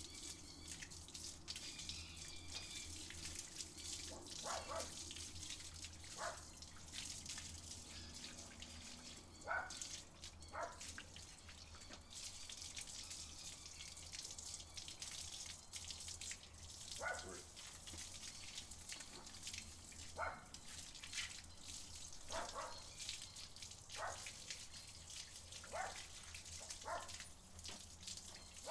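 Garden hose spraying water over a dog's coat and splashing onto wet concrete, a steady faint hiss, with short separate sounds every second or two.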